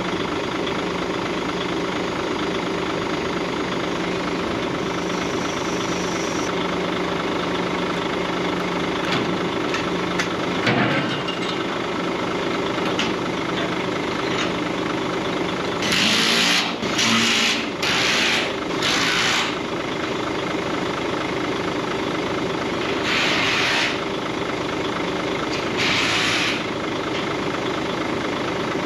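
A vehicle engine runs steadily throughout. Over the second half, short hissing bursts come in: four close together, then two more spaced apart.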